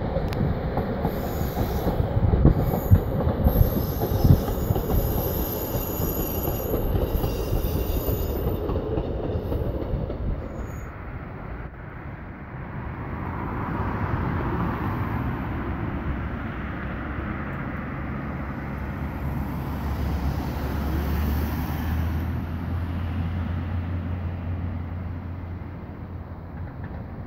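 A diesel multiple unit running on a curve, its wheels squealing high-pitched over the rumble, with a few sharp knocks in the first seconds. After about ten seconds the sound drops to a fainter, more distant train rumble with a low steady hum.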